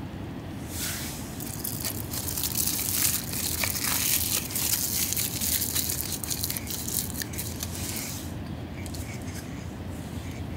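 Aluminium foil being crinkled and folded by hand around a bread roll: a dense crackling that starts about a second in and stops about eight seconds in, over a steady low background rumble.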